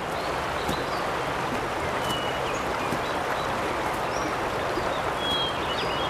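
A broad river flowing past a stony bank, a steady rushing noise, with a few short, high bird chirps over it.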